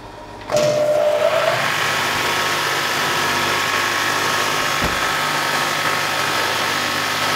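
Belt linisher (big sanding belt) grinding the steel of a sword blade to take the hammer marks off the bevels. The blade meets the running belt about half a second in, and the grinding then goes on steadily and loudly.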